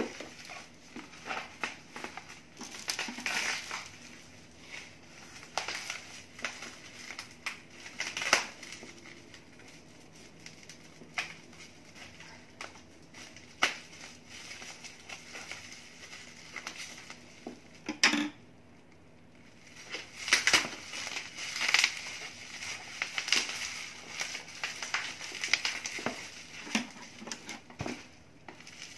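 Bubble wrap crinkling and rustling in irregular bursts as a bubble-wrapped package is handled and unwrapped, with a short lull about two-thirds of the way through.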